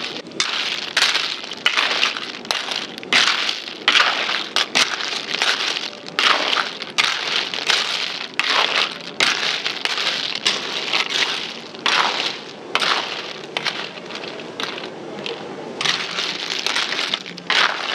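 Babylon sea snail shells clattering and scraping against a metal wok as a ladle stirs them, in repeated rattling strokes about two a second.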